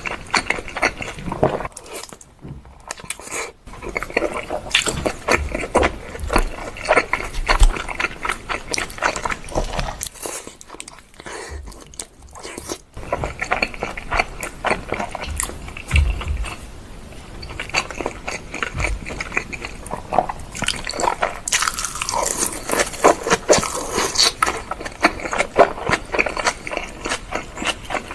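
Close-miked eating sounds: repeated crunchy bites and chewing of food, with two short pauses along the way.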